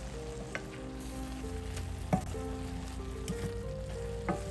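Cabbage and mushroom stir fry sizzling in a stainless steel pan, with several sharp knocks of a spatula against the pan as it is mixed, the loudest about halfway through. Soft background music with held notes plays throughout.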